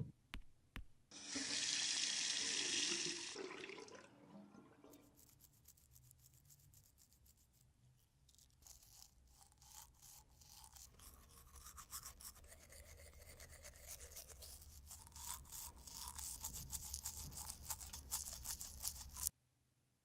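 A loud hiss for a couple of seconds, then a long run of rapid scrubbing strokes that builds up and cuts off suddenly near the end.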